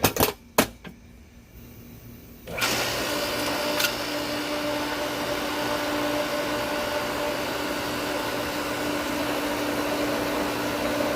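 Two sharp clicks of the power being switched on, then about two and a half seconds in the Hayward Super Pump's newly replaced motor starts suddenly and runs steadily with an even hum and a steady tone.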